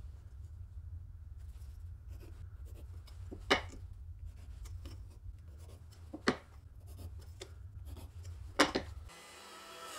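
A pointed marking tool scratching lines into MDF board along a steel ruler, with three sharp clicks. About a second before the end it gives way to the steady hum of a running power tool.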